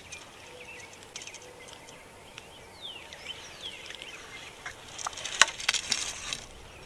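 Small birds calling in the field, with short falling chirps about three seconds in. About five seconds in comes a quick run of sharp clicks and rustles, one snap louder than the rest.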